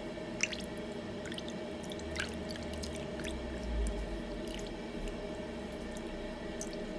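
Spatula stirring a thin mixture of coconut milk and evaporated milk in a pan: soft wet sloshing with a few scattered small splashes and ticks. A steady hum runs underneath.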